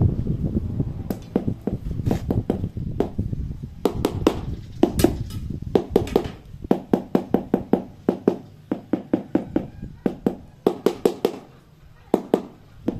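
Rubber mallet tapping ceramic floor tiles to seat them level in the mortar bed: a series of sharp knocks, coming in a quick steady run through the second half and easing off near the end.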